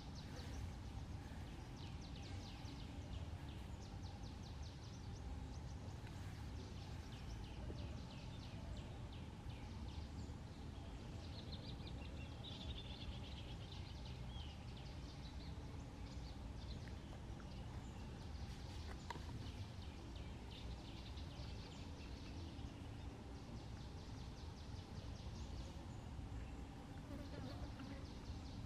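Insects calling outdoors in repeated trains of rapid, high-pitched pulses, over a steady low rumble, with a short chirping call about midway.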